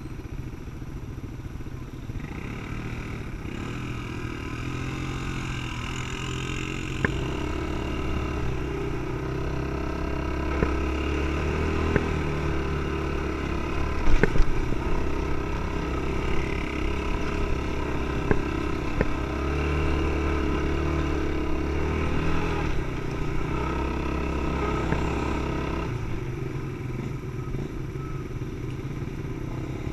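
ATV engine running as the quad rides along a rough dirt trail. The revs rise in steps early on. About halfway through there is a burst of knocks and rattles, the loudest moment. Near the end the engine drops back toward idle.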